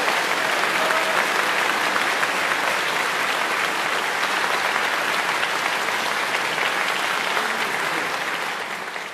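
Concert-hall audience applauding, a steady dense clapping that fades out near the end.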